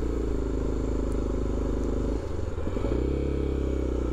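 BMW F700GS parallel-twin motorcycle engine running steadily while riding, its note breaking briefly about two seconds in before settling again.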